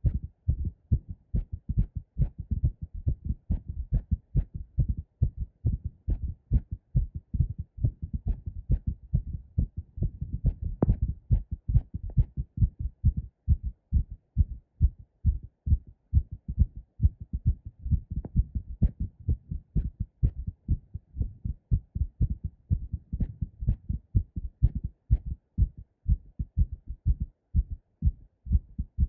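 Two recordings of a woman's heartbeat played at once, one in each stereo channel: on the left a fast pounding heartbeat after squats, on the right a heartbeat recorded while holding the breath with the chest pressed. Their beats overlap into a dense, unbroken run of low thumps.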